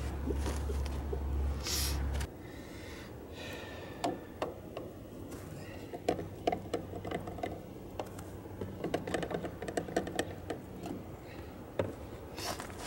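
A low steady hum cuts off abruptly about two seconds in. Light clicks and taps follow from a plastic oil drain pan and funnel being handled at a truck's fuel filler, as used engine oil drains into the diesel tank.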